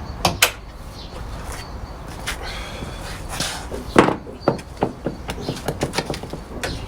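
Scattered clicks and knocks, the loudest about four seconds in, followed by a run of quicker light clicks near the end.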